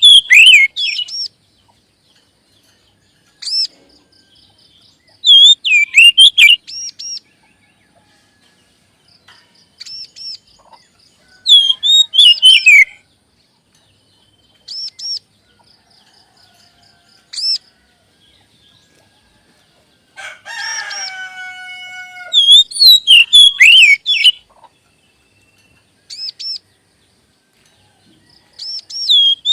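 Oriental magpie-robin (kacer) song: short, loud bursts of high, sweeping whistled and chirped notes every few seconds, with a harsher, rasping call about two-thirds of the way through.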